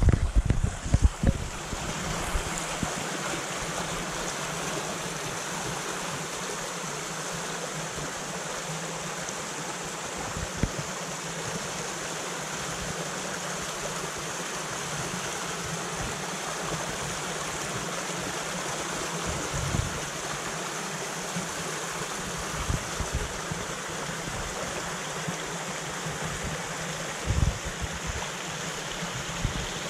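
Stream current running over rocks: a steady, full rush of flowing water. A few short low thumps stand out, several in the first second or two and one every several seconds after.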